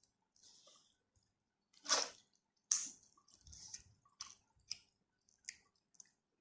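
Close-miked eating: wet chewing and mouth clicks and smacks. The loudest come about two seconds in and again just before three seconds.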